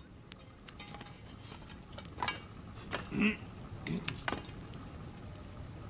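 Bonfire crackling with a few sharp pops, over a steady high trill of crickets.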